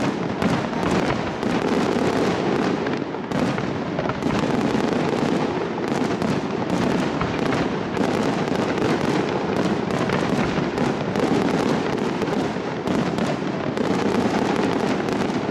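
Aerial fireworks display: shells bursting overhead in rapid succession with a dense, unbroken crackle of popping stars.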